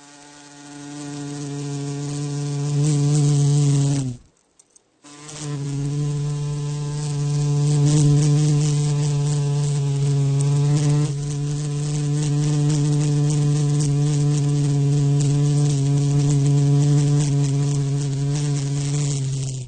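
A flying insect's wings buzzing at a steady low pitch, growing louder over the first few seconds and moving about. It cuts out for about a second, then buzzes on with slight rises and falls in pitch and loudness.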